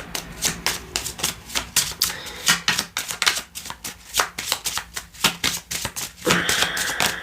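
A deck of tarot cards being shuffled by hand: a quick, irregular run of papery card flicks.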